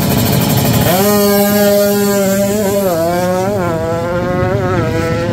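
Kawasaki Ninja drag-race motorcycle at full throttle down the strip. About a second in, its engine note holds one steady high pitch, then climbs and drops back several times as the rider shifts up through the gears.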